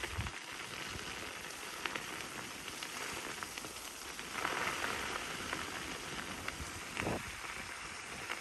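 Tyre of an electric unicycle rolling over a frozen, gritty road: a steady crackling hiss with scattered ticks. It swells about four and a half seconds in, and there is a short thump near seven seconds.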